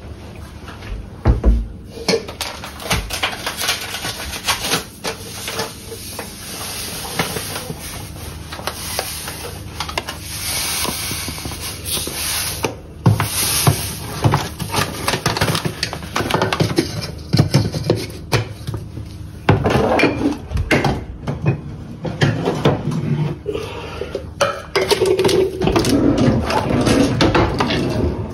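Kitchen clatter: dishes and items being handled, knocked and set down, with irregular clicks and knocks.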